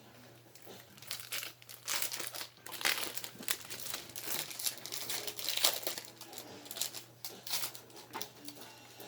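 Trading card pack wrappers being torn open and crinkled by hand, a run of irregular crackling and rustling bursts.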